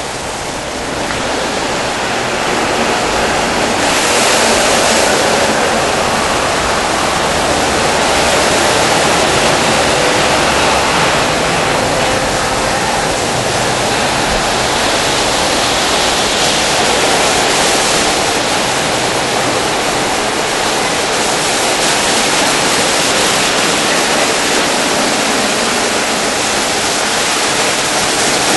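Automatic tunnel car wash running on a car: a steady, loud rush of spraying water as the tall rotating brushes work over the body, growing louder over the first few seconds and then holding.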